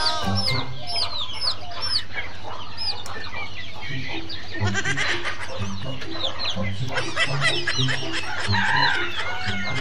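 Young chickens peeping constantly in many short, falling chirps, with some clucking among them. Background music with a low repeating note pattern plays underneath.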